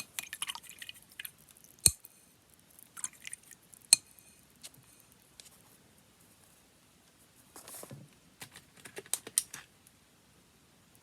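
Paper being handled, with short bursts of rustling and crinkling. Two sharp clicks come about two seconds apart in the first half, and more rustling and small ticks follow after a quiet pause.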